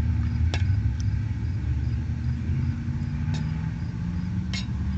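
A steady low mechanical hum, with one tone in it slowly rising in pitch, and a few short light clicks.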